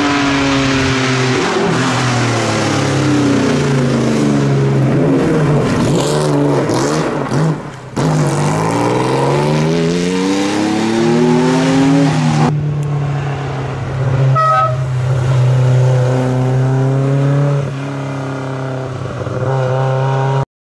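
Historic rally car engines, among them a Porsche 911, revving and accelerating through the gears in a run of short edited clips, the engine note changing abruptly at each cut. The sound cuts off suddenly near the end.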